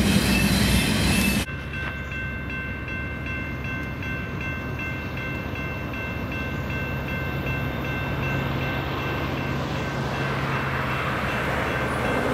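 A double-stack container train rolling past, cut off suddenly about a second and a half in. Then a railroad grade-crossing bell ringing in a steady repeating pulse as the gates lower, under a low steady hum, with an approaching train's noise building near the end.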